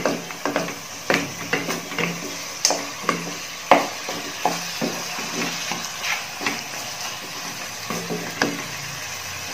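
Chicken wing pieces sizzling as they fry in a non-stick pan while a wooden spatula stirs them, with irregular scrapes and knocks of the spatula against the pan. The loudest knock comes about four seconds in.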